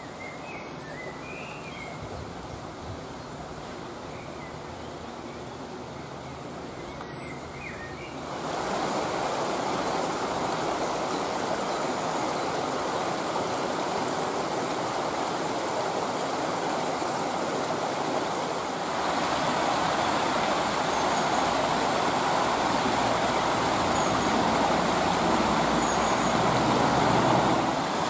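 A shallow brook rushing over stones, blended with a steady rumble of distant road traffic. A few short, high bird calls come through in the first eight seconds, one of them loud about seven seconds in. The rushing gets louder in two steps, about eight seconds in and again about nineteen seconds in.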